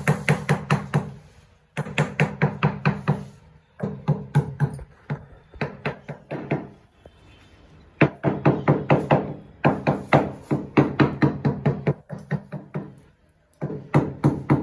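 Rapid tapping of a wooden handle on a large ceramic floor tile, about six or seven knocks a second in bursts of a second or two with short pauses between, bedding the tile into its mortar bed.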